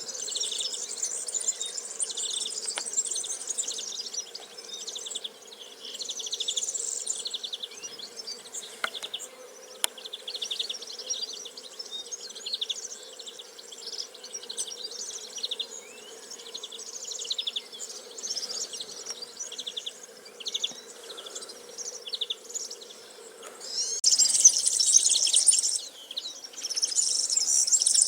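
Many small birds chirping in fast, continuous trills, growing louder and denser about 24 seconds in, over a faint steady low hum.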